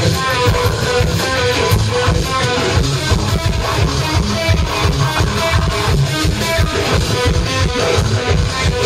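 Technical death metal band playing live and loud: distorted electric guitars over drum kit and bass, with a line of short, quick guitar notes on top.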